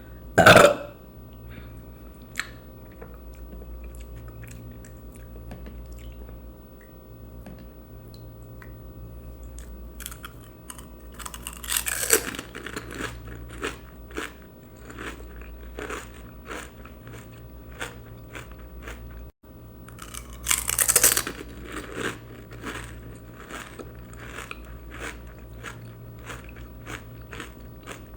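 A person eating pani puri: crisp puri shells crunching and being chewed, with many small clicks and two louder spells of crunching about 12 and 21 seconds in. About half a second in there is a short, loud sound that falls in pitch.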